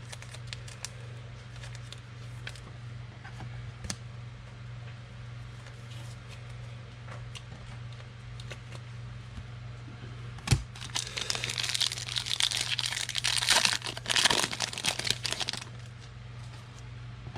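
Wrapper of a football trading card pack being torn open and crinkled: a sharp snap about ten seconds in, then about five seconds of crinkling. A low steady hum runs underneath.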